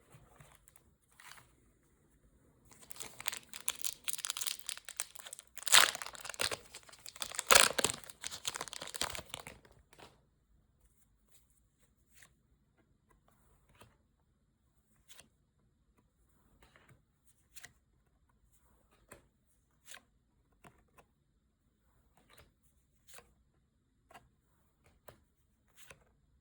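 Foil wrapper of a Pokémon card booster pack being torn open and crinkled for about seven seconds, then a string of light single clicks, about one a second, as the cards are handled one by one.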